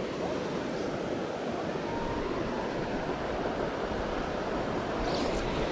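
Steady rushing of river water flowing over riffles.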